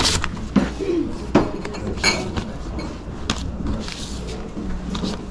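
Cardboard LP record sleeves knocking and slapping against each other as they are flipped through in a box, a handful of sharp knocks, the loudest about half a second and a second and a half in, over a steady low hum.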